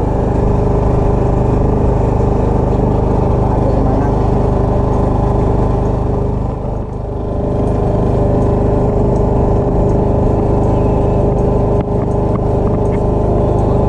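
A small engine aboard a wooden outrigger fishing boat, running steadily at an even speed as a constant hum, dipping briefly in loudness about seven seconds in.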